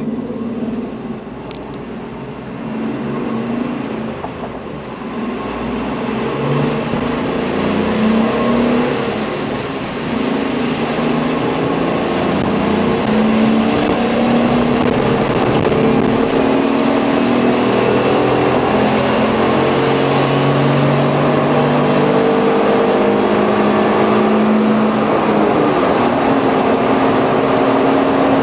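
Suzuki Every van's 660 cc three-cylinder engine heard from inside the cabin while accelerating: its pitch climbs and steps back down several times as the automated manual gearbox (AGS) shifts up. Under it runs a steady hiss of tyres on the wet road, growing louder over the first half.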